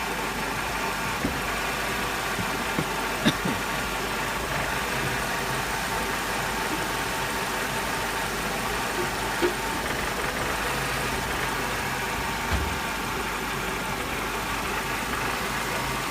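2000 Mercedes SLK 230's supercharged four-cylinder engine idling steadily, broken by a handful of brief knocks or stumbles: the intermittent misfire that shakes the car.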